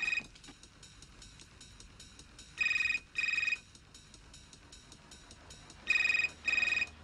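Mobile phone ringing in pairs of short electronic rings: the end of one ring right at the start, then a pair about two and a half seconds in and another about six seconds in.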